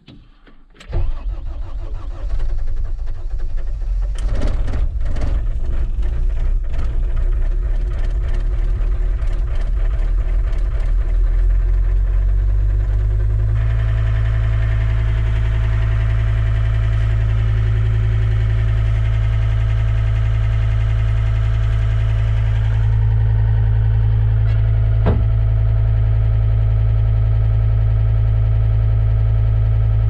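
John Deere track skid steer's diesel engine starting about a second in and running rough and uneven at first, then settling into a steady idle about halfway through. A single sharp click near the end.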